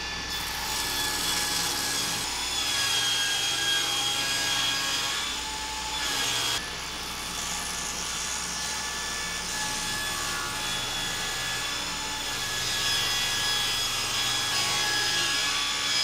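Table saw ripping oak boards: the blade runs with a steady high whine over the noise of the cut, its pitch sagging slightly as the blade bites into the wood.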